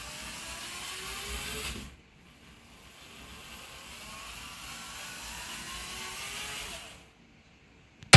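LEGO robot's electric drive motors whining, the pitch rising as the robot speeds up, over a steady hiss. The sound cuts off abruptly about two seconds in, starts again rising a moment later, and cuts off again about a second before the end.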